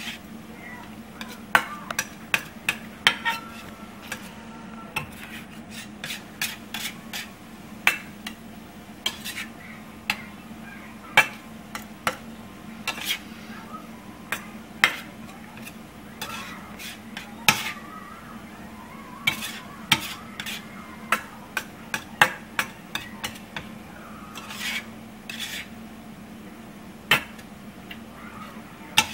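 A slotted metal spatula scrapes and taps against a stainless steel frying pan as scrambled eggs are stirred, giving irregular sharp clicks and scrapes. A steady low hum runs underneath.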